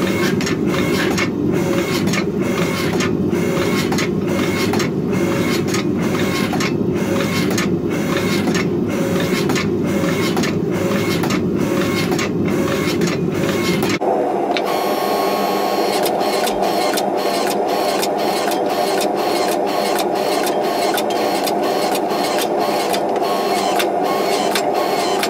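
Electric log splitter's motor and hydraulic pump running under load as the converted forge press squeezes a hot steel billet, with a steady, regular pulsing. About halfway through, the sound abruptly shifts higher in pitch and the pulsing speeds up.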